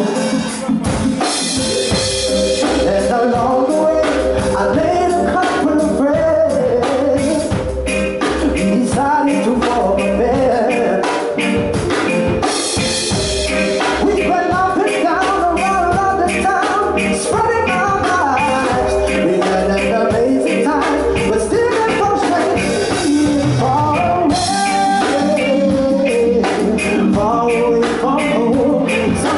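Live reggae band playing with a male singer: sung vocal over drum kit, electric guitar and bass.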